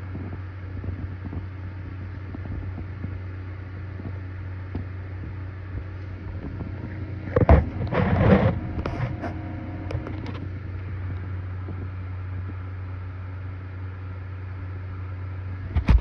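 A computer giving off a steady low droning hum, the weird noise that the owner wonders may come from the heat. A louder patch of knocks and rustling comes about seven to ten seconds in.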